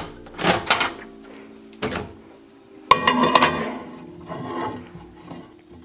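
Microwave oven door handled: a sharp click of the door release about three seconds in, a short clatter as the door swings open, and a ceramic mug put inside onto the glass turntable, with a few lighter knocks earlier. Quiet background music plays throughout.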